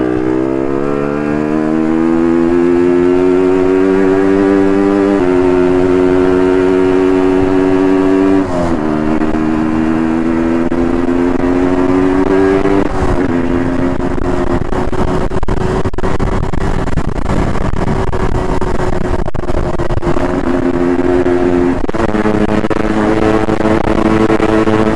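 Motorcycle engine heard from on board, its pitch climbing as it accelerates, with drops at gear changes about five and eight seconds in. It then runs at a fairly steady speed with wind noise over it.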